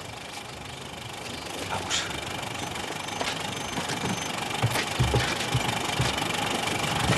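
Antique open touring car's engine running at idle, getting slightly louder, with a few clicks and low thumps as people climb aboard about five seconds in.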